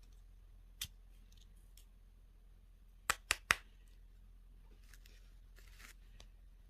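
Sharp plastic clicks from hands handling toy and candy packaging during unboxing: one click about a second in, then three quick clicks about a fifth of a second apart around the middle, and a brief rustle near the end.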